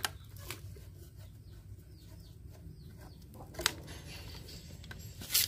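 Faint bird chirping, a run of short falling chirps about three a second in the middle, with a few sharp clicks of a screwdriver and metal parts on the window air conditioner; the sharpest clicks come past halfway and near the end.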